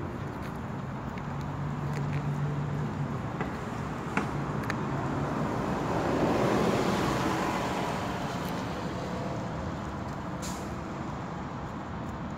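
Road traffic going by: a steady hum of vehicles, with one passing close that swells to its loudest a little past the middle and then fades.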